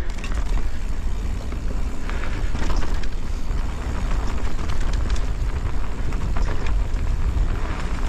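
E-mountain bike ride down a rough trail: a heavy, steady rumble of wind and jolts on the action camera's microphone, with tyre crunch and scattered rattles and clicks from the bike.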